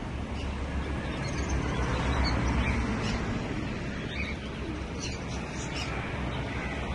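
Birds chirping now and then over a steady low rumble.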